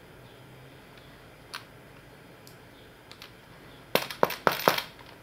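Small hard-shell zippered earphone case handled in the hands: a faint click, then about four seconds in a quick run of five or six sharp clicks and taps.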